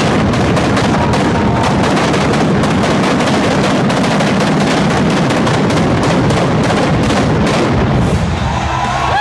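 Arena stage pyrotechnics firing: a loud, dense crackle of spark fountains and bangs, dying down near the end as music comes in.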